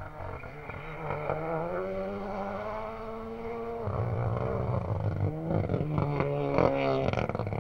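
Renault Clio Rally3 Evo rally car engine at speed on gravel, heard from a distance. The revs climb steadily, drop and run louder about four seconds in, then rise and fall quickly several times near the end.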